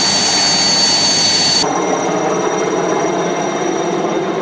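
Helicopter turbine engine running, a steady high whine over a loud rushing noise; the sound changes abruptly about one and a half seconds in.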